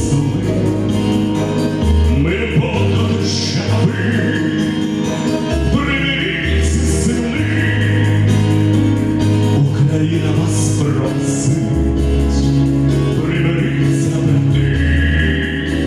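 A man singing a song into a microphone over instrumental accompaniment, with a bass line that changes notes every second or two.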